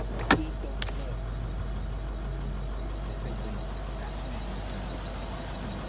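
Steady low hum of the Range Rover Vogue's engine idling, heard from inside the cabin, with a sharp click about a third of a second in and a lighter click just before a second in.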